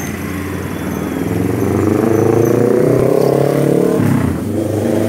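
Toyota Sienta's 1.5-litre petrol engine being revved: the revs climb about a second in, hold high, drop briefly just past four seconds, then rise again.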